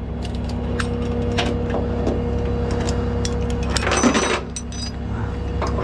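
A truck engine idling steadily, under scattered metal clinks and rattles of tie-down chains and strap hooks being handled on a steel flatbed deck, with a louder clatter about four seconds in.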